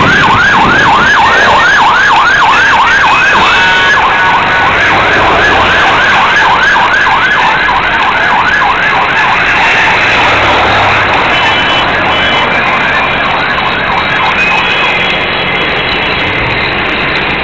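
Emergency vehicle siren on a fast yelp, its pitch sweeping up and down about four times a second, with a brief break about three and a half seconds in, fading away about ten seconds in. Road traffic and wind noise run underneath.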